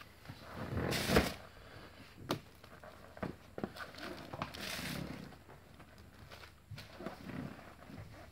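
Handling noises from an upholstered suspension seat as its backrest is tipped back: a knock about a second in, then scattered clicks, knocks and rubbing.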